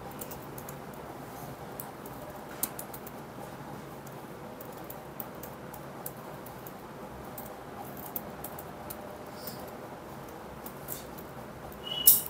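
Steady room noise with scattered faint clicks and taps, and a short louder clatter with a brief squeak near the end.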